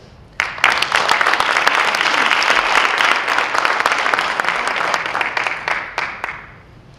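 Audience applauding: many people clapping at once, starting suddenly about half a second in, holding steady for several seconds and dying away near the end.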